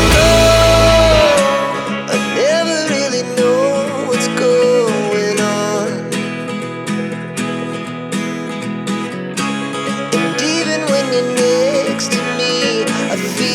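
Background music: a song with guitar and a gliding melody line over steady chords, its heavy bass dropping out about a second in.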